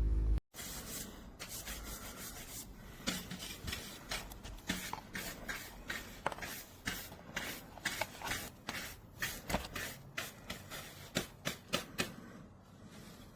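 Rubbing and handling sounds with many irregular sharp clicks, thickest between about three and twelve seconds in, then easing off.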